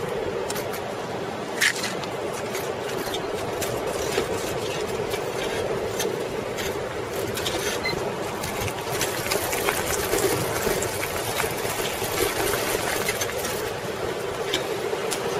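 A 1995 Schwinn Classic Cruiser rolling over a dirt and gravel path: steady tyre noise with many small clicks and rattles from the bike and loose stones.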